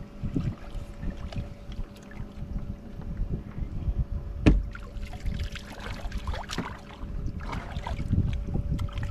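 Wind buffeting the microphone aboard a fishing boat, under a faint steady hum. A single sharp knock sounds about four and a half seconds in.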